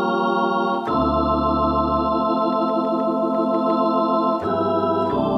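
Ringway RS1000e electronic organ playing sustained chords on a flute registration combining 16', 8', 4' and 1' footages. The chord changes about a second in and twice more near the end.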